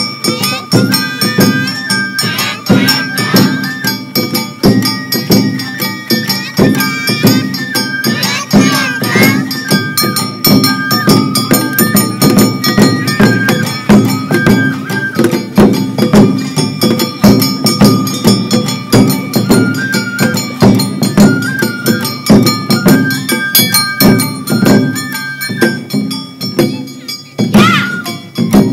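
Awa odori hayashi music: taiko drums and a clanging kane bell keep a quick, steady beat under a high flute melody that moves in short stepped phrases.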